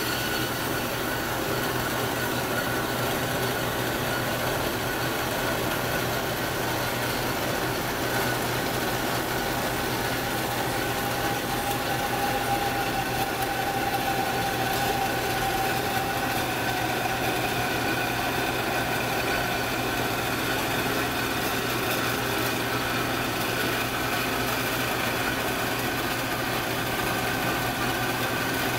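1997 Marvel MV460 APC tilt-frame vertical band saw running and cutting through a large metal block. It makes a steady mechanical hum with a few held whining tones, one of which rises and fades away in the middle of the cut.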